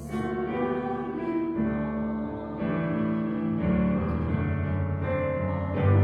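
Instrumental keyboard music, likely piano, playing held chords that change about once a second, swelling louder near the end.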